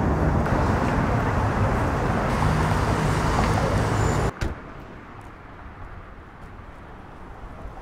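Steady road-traffic rumble, loud and low, that cuts off suddenly about four seconds in, leaving a much quieter outdoor background with a few faint ticks.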